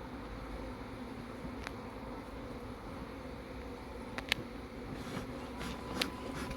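A colony of Irish black honeybees buzzing in a steady low hum around an open hive. A few sharp clicks come near the end.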